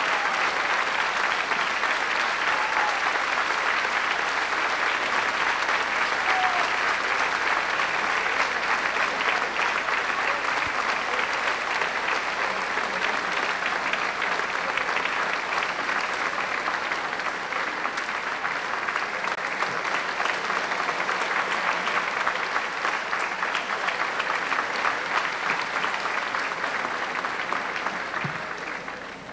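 Audience applauding steadily for nearly half a minute, dying away near the end.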